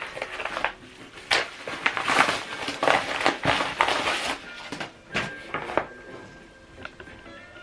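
Packaging being handled and opened: crinkling, rustling and scraping in irregular bursts with sharp clicks, dying down after about six seconds.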